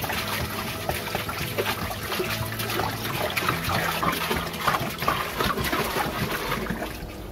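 Water pouring from a blue plastic water jug into a glass aquarium, splashing onto the bottom, easing off near the end.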